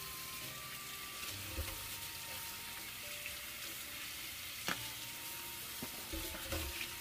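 Kitchen tap running and splashing into a stainless steel sink and colander as bell peppers are rinsed by hand, with a few sharp knocks as the peppers are handled, the loudest about two-thirds of the way through.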